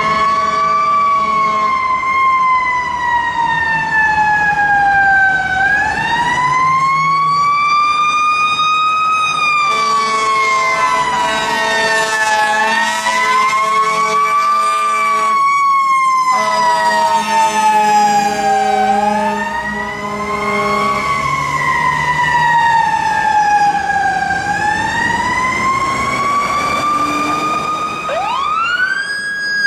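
A fire engine's siren wailing, rising quickly then falling slowly in pitch, over and over about every four to five seconds. Near the end another siren sweeps sharply up in pitch.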